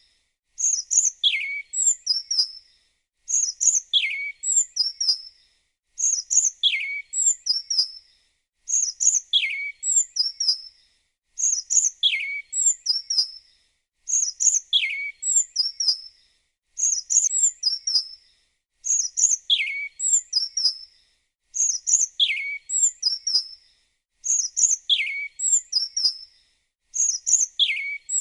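A small songbird's short phrase of high chirps and a falling whistle, repeated identically about every two and a half seconds with short gaps between: a looped birdsong sound effect.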